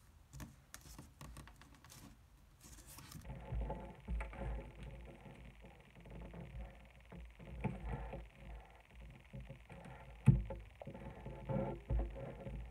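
Paper rustling and crinkling as a thin sheet is folded and its creases pressed down by hand, with scattered light taps and low bumps against the table and one sharper knock about ten seconds in.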